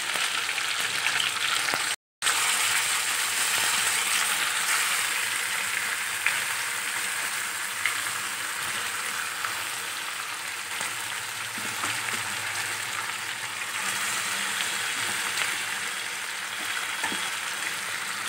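Marinated chicken pieces sizzling in hot mustard oil and ghee in a pan: a steady frying hiss, with a few faint clicks of the spatula turning the pieces. The sound cuts out for a moment about two seconds in.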